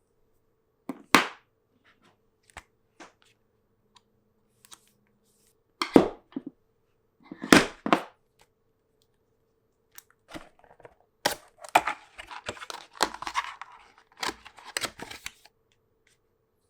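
Phone cases and their packaging being handled during an unboxing: a few sharp clicks and snaps, then a denser run of clicks with rustling and scraping in the second half.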